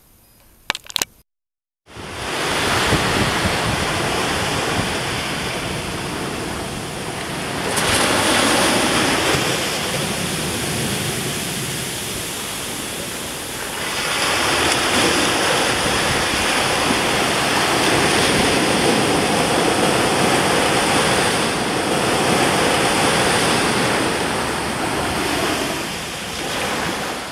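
Steady rushing noise of ocean surf, swelling about 8 seconds in and again from about 14 seconds in. A couple of sharp clicks and a brief silence come just before it starts.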